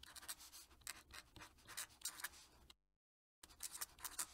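Fountain pen nib scratching faintly across paper in a run of quick strokes as a signature is written. The strokes stop for about half a second a little under three seconds in, then start again.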